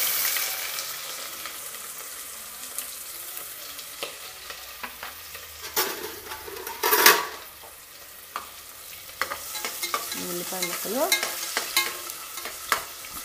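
Chopped onions dropped into hot oil in an aluminium pressure cooker, sizzling loudly at first and settling to a steady frying hiss. In the second half a spatula scrapes and knocks against the pot as the onions are stirred.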